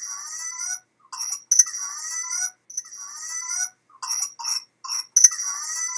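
Infant's recorded cough in repeated paroxysms: longer stretches carry a rising-pitched, whooping intake of breath, and shorter sharp cough bursts come between them in the second half. The clinical picture behind it, a week of runny nose and then a tight, severe, intermittent cough in a 4-month-old, is typical of pertussis (whooping cough).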